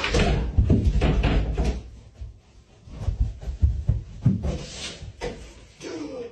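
Thumps and knocks of a person jumping up from a rolling office chair and running across a carpeted room, with the chair knocking about.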